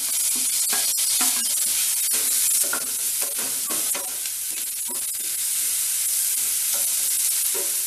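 Onions and freshly added chopped tomatoes sizzling in oil in a frying pan, with a wooden spatula scraping and stirring them round the pan in repeated short strokes.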